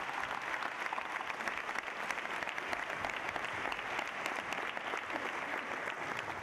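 Large seated audience applauding, a dense steady patter of many hands clapping.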